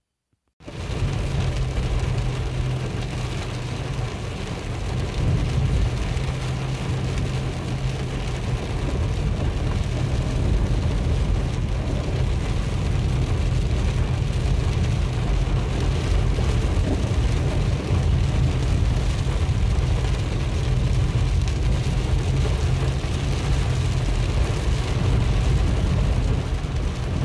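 A vehicle driven fast over a rough dirt track, its engine running as a steady low hum under heavy rumbling wind and road noise on the microphone. The sound cuts in abruptly about half a second in.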